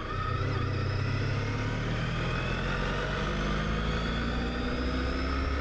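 A vehicle accelerating on the road, its drive note rising slowly in pitch over steady road and wind noise.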